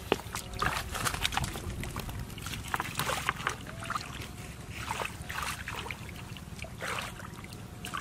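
A hand sloshing and splashing through shallow muddy water, feeling along the bottom for fish, in many short, irregular splashes.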